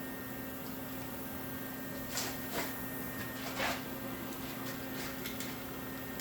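Steady low hum of background noise, with a few faint brief clicks or taps about two and three and a half seconds in.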